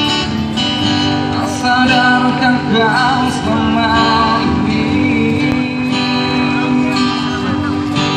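Acoustic guitar being strummed while a man sings into a microphone, played through a loudspeaker.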